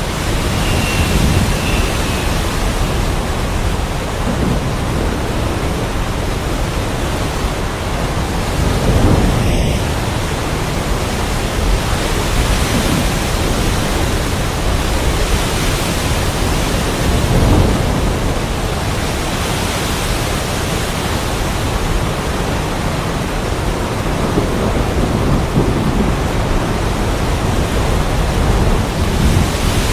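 Heavy rain falling steadily, with low rolls of thunder swelling up twice, about a third of the way in and again just past halfway.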